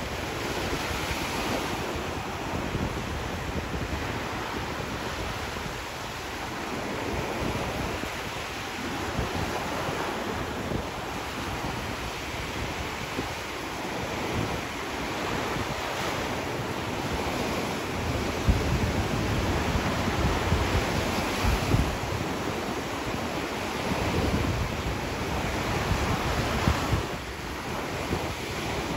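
Small waves breaking and washing up on a sandy shore, a steady hiss that swells as each wash comes in. Wind rumbles on the microphone in gusts, strongest a little past halfway.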